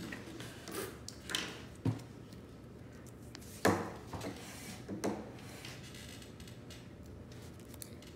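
Short handling sounds as a wrapped toy ball and its paper clue card are handled at a table: a few brief rustles and light knocks, the loudest a little under four seconds in.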